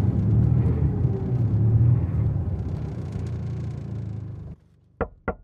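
Road traffic: engine rumble of vehicles, with one passing in a slowly falling pitch. It cuts off suddenly near the end and gives way to three short, sharp sounds in quick succession.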